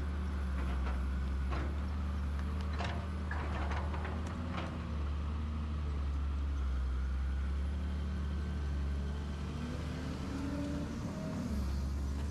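Excavator diesel engine running steadily, with scattered sharp clanks and knocks in the first half.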